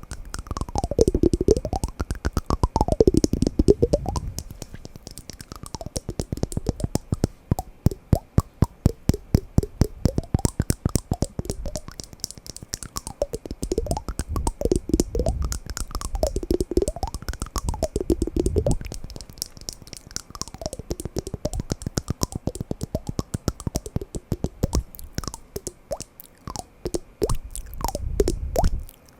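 Wooden blocks knocked and tapped in fast runs of clicks, many a second, growing louder in stretches, with hollow ringing tones that slide up and down in pitch.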